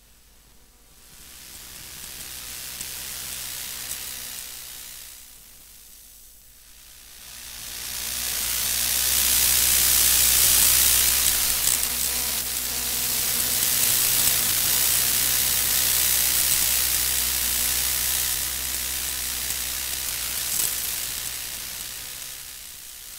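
Electromagnetic emissions from a laptop's electronics picked up by a bare loudspeaker coil through a preamp: a dense hiss over a steady low hum, swelling and fading as the coil moves. It grows loud from about eight seconds in as the coil sits over the touchpad, where the CPU lies.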